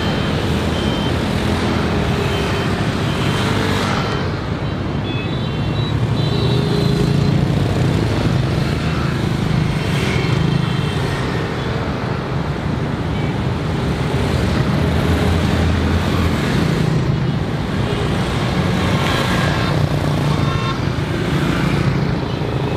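Dense city street traffic, mostly small motorbikes and scooters with a few cars, engines running as they pass through an intersection. A few short horn toots sound at times, around five seconds in and again near the end.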